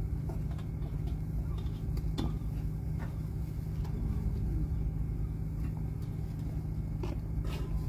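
Steady low engine rumble, with a few light clicks over it.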